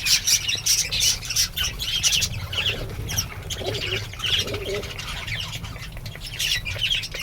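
Many small cage birds chirping quickly and continuously, with a pigeon cooing low from about three and a half to five seconds in.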